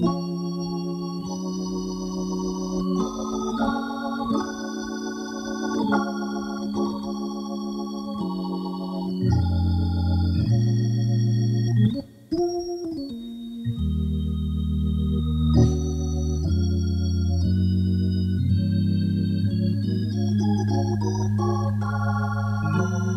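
Instrumental blues music led by an organ, playing sustained chords that change every second or so. It dips briefly about halfway through, with a short sliding note.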